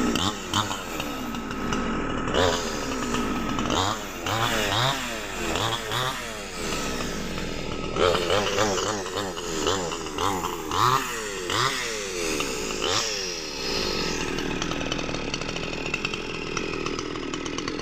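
Chainsaw cutting a log of very hard timber, its engine revving up and down again and again as it bites, then running steadier near the end.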